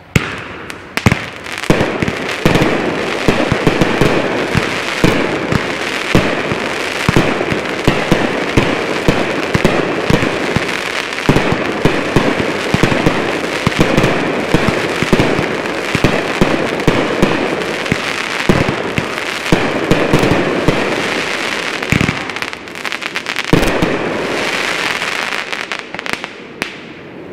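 Consumer fireworks firing in a dense barrage: a rapid run of launch thumps and aerial bursts over a continuous rushing hiss, with rising comet tails from firework cakes. It eases off near the end.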